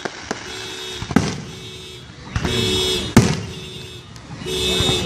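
Car alarm sounding a repeating on-off tone, set off amid the fireworks, with sharp firework bangs about a second in and again at about three seconds.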